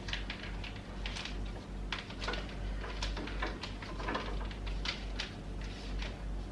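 Irregular light clicks and knocks of small hard objects being handled and set down, over a steady low hum.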